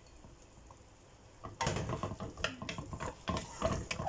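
Wooden spatula stirring freshly added diced potatoes, carrots and chicken in a nonstick frying pan: an irregular run of scraping strokes starting about a second and a half in.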